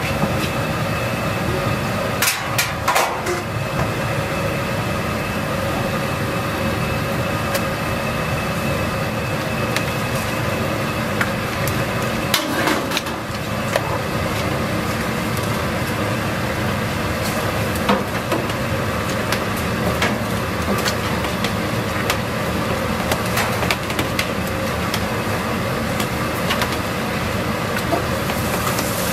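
Large pot of thin wheat noodles at a rolling boil, a steady rushing noise, with scattered clinks and knocks of utensils against the metal pot.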